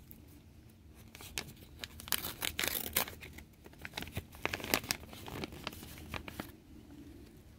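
Seed packet being torn open and handled, a run of irregular crinkling crackles and short rips that stops about a second before the end.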